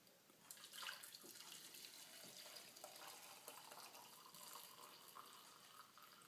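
Hot coffee pouring from a Chemex glass carafe into a cup: a faint, steady trickling stream that starts about half a second in.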